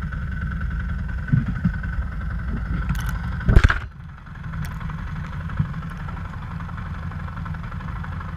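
Dirt bike engine running at a steady speed, with a loud sharp knock about three and a half seconds in; the engine sound then dips briefly and carries on.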